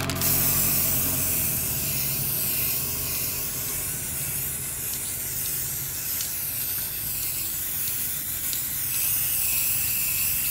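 Steady hissing spray with a low motor hum underneath.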